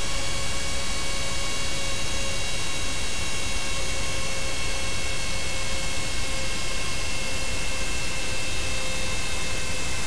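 GE GEnx high-bypass turbofan jet engine decelerating: a steady rushing noise with several whining tones on top that drift slowly lower in pitch as the engine spools down.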